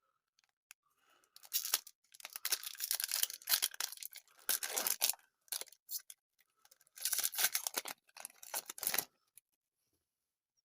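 A Wacky Packages sticker pack's wrapper being torn open and crinkled, in two stretches of rustling and tearing, the second about two seconds after the first ends.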